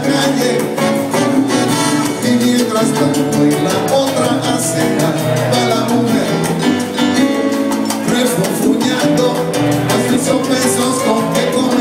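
A live salsa band playing, with a steady percussion beat under pitched instruments, heard from the audience in a large hall.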